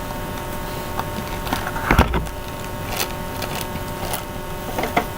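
Small plastic toys and their packaging being handled: a few light clicks and a louder knock about two seconds in, over a steady faint hum.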